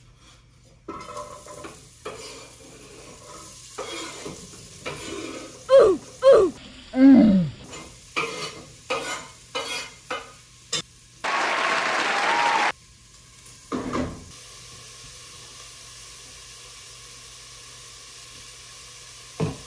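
Chopped onions scraped off a cutting board with a knife into a hot Dutch oven: scattered scrapes and knocks with a few short squeaks, then a loud burst of sizzling about eleven seconds in as they hit the hot oil, settling into a soft, steady sizzle of onions frying.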